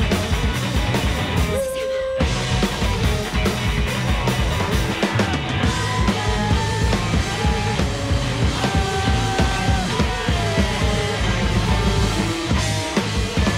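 Rock band playing loud and live, with driving drums, bass and guitar under held melodic notes. About two seconds in the band breaks off for half a second, leaving a single held note, then comes back in at full volume.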